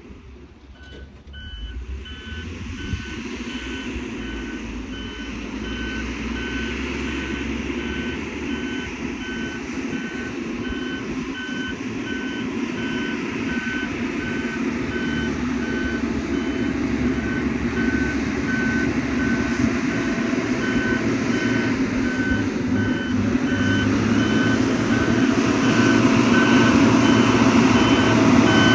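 XCMG motor grader's diesel engine running while its reversing alarm beeps at a steady pace from about a second in; the engine grows louder toward the end.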